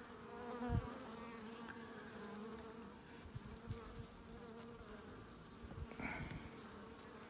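Honeybees buzzing around an opened hive, a steady hum whose higher tones waver as the bees fly, with a soft knock about a second in.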